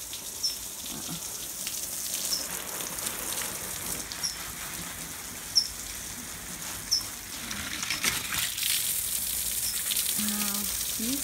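Garden hose spraying water over plants and soil, a steady hiss and patter.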